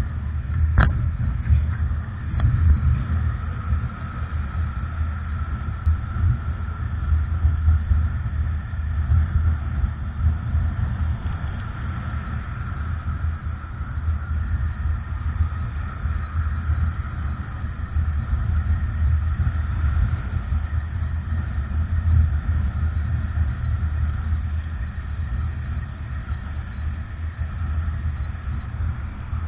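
Wind and road rumble from riding an electric bike at speed, buffeting the camera microphone, with a faint steady higher tone over it. One sharp click about a second in.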